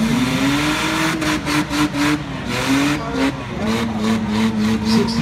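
Demolition derby car engines revving, their pitch rising and falling, with a run of sharp knocks about a second or two in.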